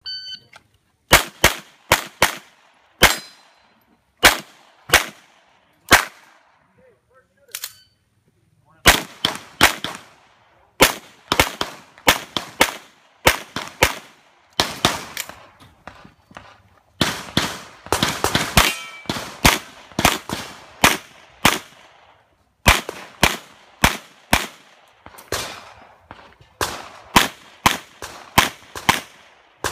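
Shot-timer start beep, then a competitor firing a handgun through a practical-shooting stage: dozens of sharp shots in quick pairs and fast strings, with a pause of about three seconds early on the course.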